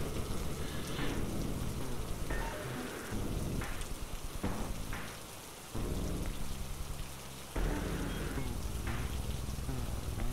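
Steady rain-like hiss over low sustained droning tones, with a few faint clicks.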